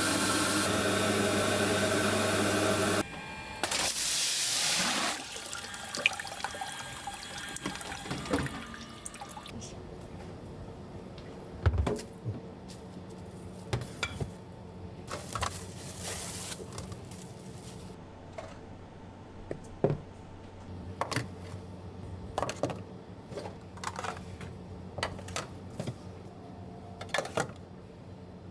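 Water running from a tap, a steady rush with a low hum that cuts off suddenly about three seconds in, then a shorter burst of running water. After that come scattered clicks and knocks of kitchen work.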